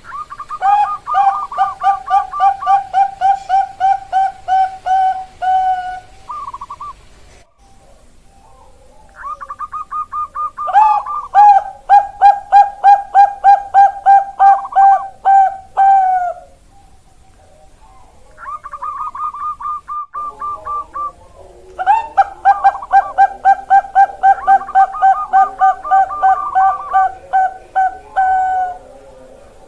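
Bangkok-strain zebra dove (perkutut) singing its staccato cooing song in three bouts. Each bout opens with a quick higher trill and runs on as a string of lower notes, about four a second. The second bout is the loudest.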